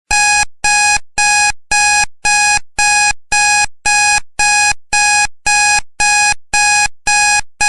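Electronic alarm-clock beeping as a countdown timer reaches zero: a loud pitched beep repeated about twice a second, each held briefly and then fading, starting suddenly out of silence.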